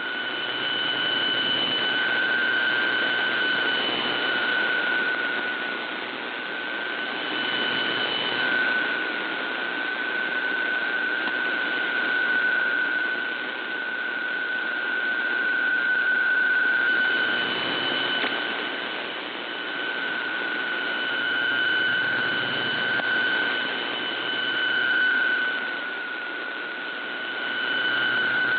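PSK125R digital text signal received over shortwave AM: a steady data tone near 1500 Hz over a bed of static hiss. It fades down and back up every few seconds, marginal reception that still decodes.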